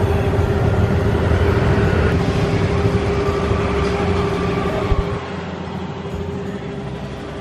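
Steady low rumble of a moving vehicle with a constant droning hum, a little quieter from about five seconds in.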